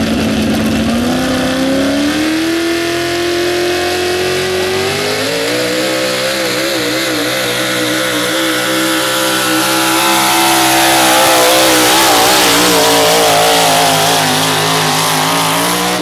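Pickup truck's engine at full throttle pulling a weight-transfer sled in a truck pull. The engine note rises over the first five seconds, then holds high with a wobbling pitch, loudest a little past the middle.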